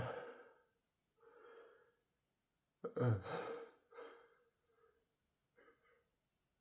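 A man's sharp, voiced breaths as a sneeze builds: a loud gasp or sigh right at the start and another about three seconds in, each trailing off, with softer breaths between and after.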